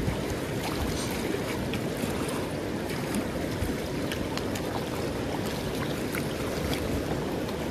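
Steady rush of river water running over rocks, with faint scattered small splashes.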